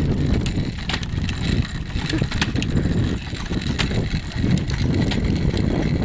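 Child's tricycle with hard plastic wheels rolling over a concrete sidewalk: a continuous rumble with scattered clicks and rattles.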